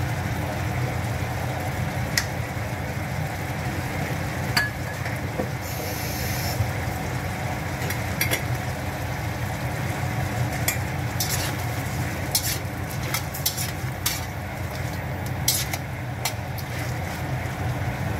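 Food sizzling in a pan while a spatula stirs it, with scattered sharp clicks and scrapes of the utensil against the pan.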